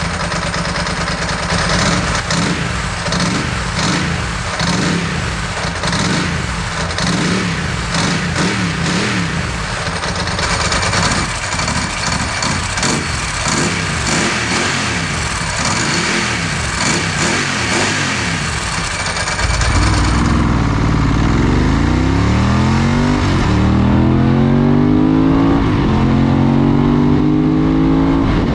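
Ducati 916's 916 cc 90° L-twin engine running unevenly at low revs, then from about two-thirds through revved several times, its pitch climbing and falling with each blip of the throttle.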